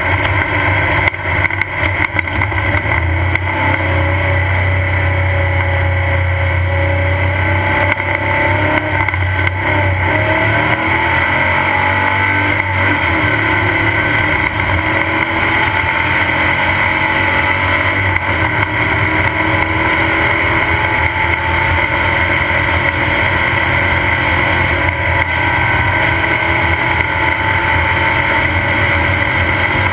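Off-road race car's engine running steadily, heard from on board, with clattering knocks in the first few seconds. About twelve seconds in its pitch slides up and down as the car picks up to race speed.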